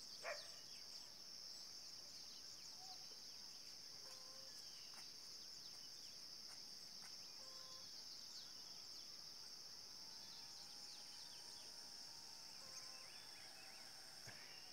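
Steady high-pitched drone of insects, with faint short chirps over it and one brief louder call just after the start.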